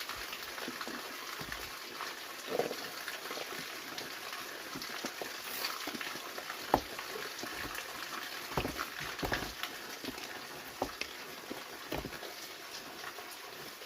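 Steady rush of a waterfall, with scattered short knocks and clicks over it.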